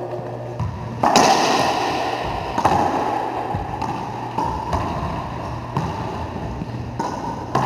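Racquetball rally: the hollow rubber ball cracking off racquets and the court walls, with each hit ringing and echoing around the enclosed court. The loudest hit comes about a second in, followed by several lighter knocks at uneven intervals.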